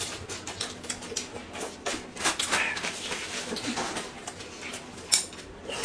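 Close-up eating sounds: crisp chewing of bamboo shoots with mouth smacks and clicks, and the rustle and tearing of bamboo-shoot husks being peeled. A louder rustle comes about two seconds in.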